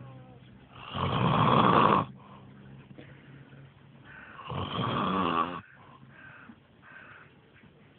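A man snoring loudly in deep sleep: two long snores, about a second each and about three and a half seconds apart, with quiet breathing between.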